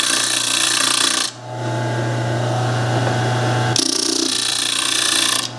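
Disc sander running with a steady motor hum. The disc hisses loudly as work is pressed against it for about the first second, eases off, then grinds again from about four seconds in until near the end.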